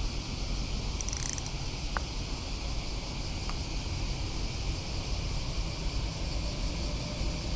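Steady outdoor ambience: low wind rumble on the microphone under a steady high hiss of insects, with a brief high rustle about a second in and a couple of faint clicks.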